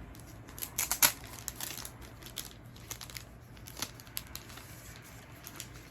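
Album packaging being handled: crinkling and sharp little clicks of paper and plastic, with a dense cluster about a second in and scattered ticks after.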